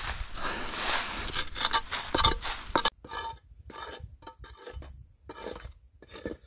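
Hand tool scraping and knocking against stone and earth: about three seconds of continuous scraping that stops suddenly, then a series of separate short scrapes.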